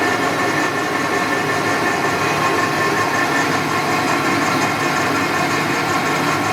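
Clausing Metosa 2487VS variable-speed engine lathe running steadily, a constant mechanical hum with several steady whining tones.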